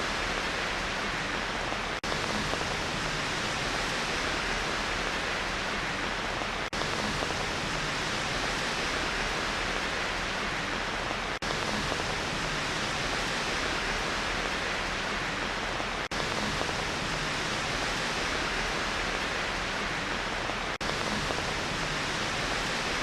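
Steady rain white noise, an even hiss with no individual drops standing out. It has a brief dip in level about every five seconds.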